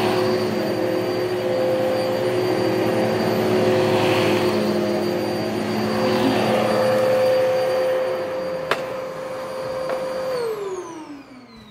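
Sanitaire commercial upright vacuum cleaner running on carpet, with a steady motor whine. About ten seconds in it is switched off and the motor winds down, its pitch falling as it fades. There is a single sharp click shortly before.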